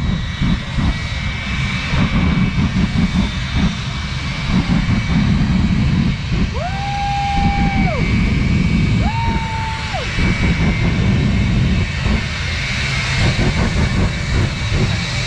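Jet truck's jet engine running with its afterburner lit: a loud, low, crackling rush of jet noise. Two held whistle-like tones sound over it, about 7 and 9 seconds in.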